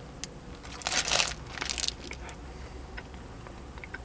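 Paper wrapper crinkling and a crunchy bite into a crispy chicken snack wrap, in two short bursts between about one and two seconds in.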